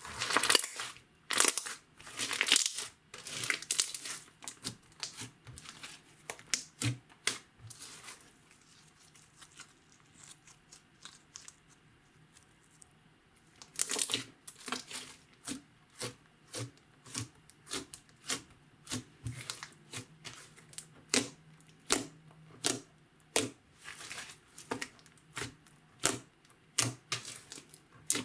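Clear slime with makeup and glitter mixed in, being squished and stretched by hand, making sticky clicks and pops. They come thick and fast at first, thin out for a few seconds in the middle, then return as a steady run of pops, a bit under two a second.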